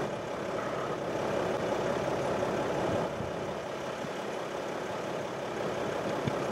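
Steady road and engine noise of a car driving along a highway, heard from inside the cabin.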